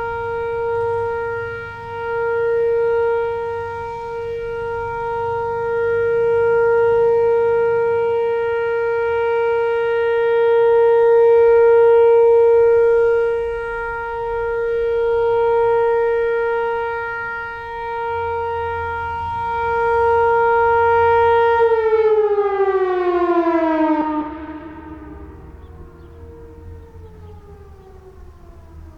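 Whelen WPS-4004 electronic outdoor warning siren sounding its steady one-minute alert tone, swelling and fading every few seconds as the head rotates. Near the end the alert finishes: the tone slides down in pitch and fades away.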